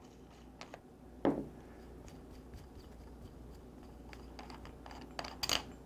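Clamp knobs being unscrewed by hand from the threaded studs of an MGW SP1000 Sight-Pro pistol sight pusher. Faint handling clicks, one sharper click about a second in, and a short scrape of metal parts rubbing near the end.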